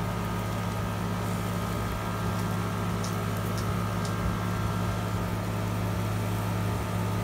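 A steady low machine hum with a thin steady whine above it, and a few faint light clicks.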